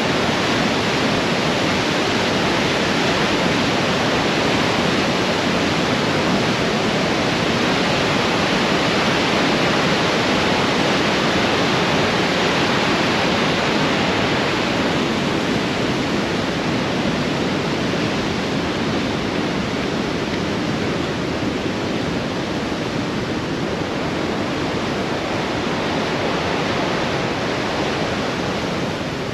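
Great Falls of the Androscoggin River: white water rushing over rocks in a loud, steady wash of noise that eases slightly in the second half.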